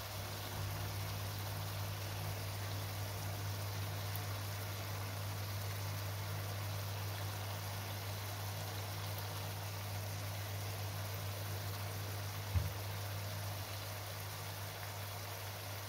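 Lamb liver, onions and sauce simmering in a frying pan: a steady soft sizzle and bubbling over a constant low hum, with one short knock about three-quarters of the way through.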